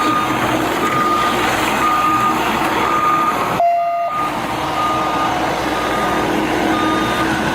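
A backhoe's reversing alarm beeping about once a second over the loud running of its diesel engine and machinery close by. The sound drops out for about half a second halfway through.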